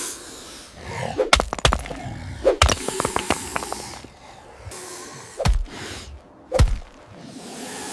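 A series of sharp thuds and knocks with swishing swells between them, over quiet background music.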